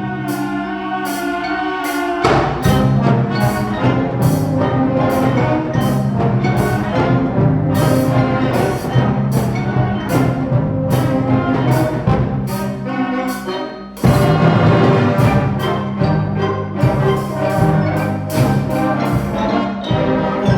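School concert band of middle school students playing an upbeat tune with a steady percussive beat. The music thins out briefly, then the full band comes back in loudly about fourteen seconds in.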